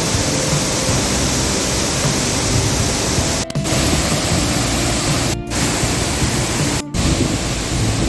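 Steady rushing of a waterfall, cut off three times for a split second, about three and a half, five and a half and seven seconds in. Faint music underneath.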